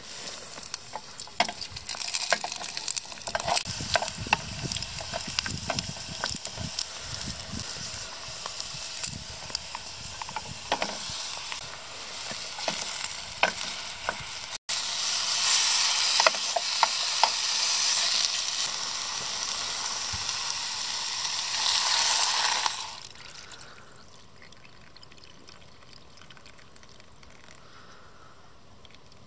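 Garlic and sliced mushrooms frying in oil in an aluminium Trangia mess tin, a crackling sizzle with frequent pops and the scrape of a wooden spatula. About halfway through it becomes a louder, steadier hiss for several seconds. Near the end it drops to a low, quiet sound once water is in the tin.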